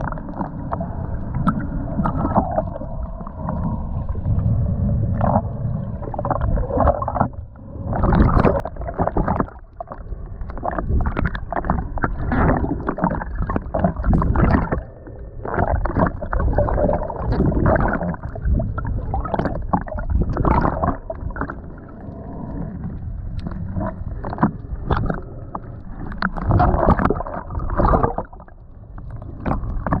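Muffled water sounds: irregular splashing and gurgling surges over a heavy low rumble, dull and cut off above the middle pitches.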